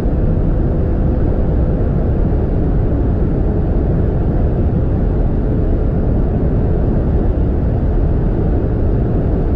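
Audi RS6's twin-turbo V8 accelerating at close to 300 km/h, heard from inside the cabin under a steady roar of wind and road noise. Its faint engine note steps down slightly about two seconds in as the gearbox upshifts from sixth to seventh.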